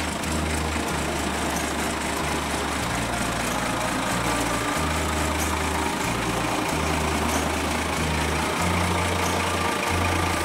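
1963 Morris FFK-140 truck's engine idling steadily.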